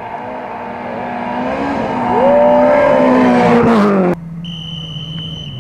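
Renault Clio rally car engine revving hard as it comes towards and past on a gravel stage, its pitch and loudness climbing to a peak between about two and four seconds in. About four seconds in the sound cuts off abruptly, and a quieter, lower engine note with a steady high tone takes over.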